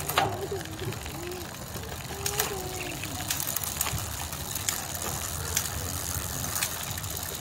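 Road bike drivetrain turning with the rear wheel spinning: the chain running over a newly fitted 11-36T cassette and through the rear derailleur, making a steady low whir with a few sharp clicks scattered through.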